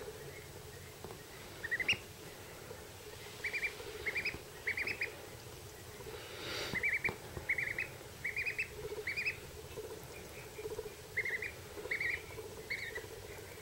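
Duckling peeping: short high peeps in quick runs of two to four, repeated about once a second with short pauses between.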